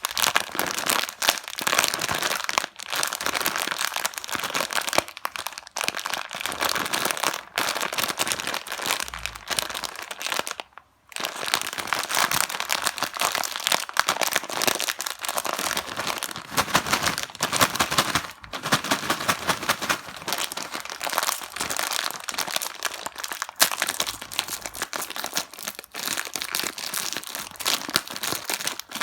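Plastic snack wrappers and packets being handled and torn open, crinkling continuously, with one short pause about eleven seconds in.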